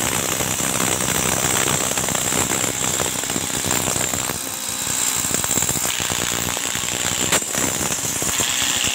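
Corded hammer drill drilling upward into the balcony ceiling to anchor the top profile of a glass balcony frame, running almost without a break with a rapid hammering and a high whine, easing briefly around the middle.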